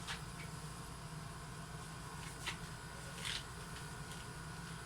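Faint handling noises: a few light taps and rustles, about a second in, midway and again a little later, as a drone charger is tried in a slot of the drone's carrying case, over a steady low room hum.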